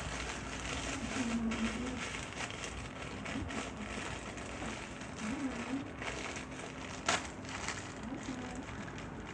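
Thin plastic shopping bag being crumpled and stuffed into another plastic bag, crinkling with many small crackles and one sharper click about seven seconds in.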